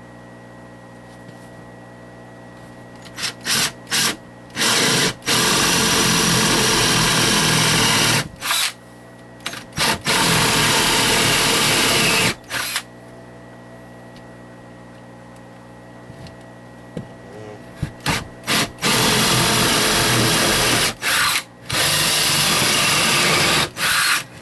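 Cordless drill boring a hole down through wooden planks and floor boards. It runs in stop-start bursts of one to three seconds, beginning about three seconds in, with a pause of several seconds in the middle.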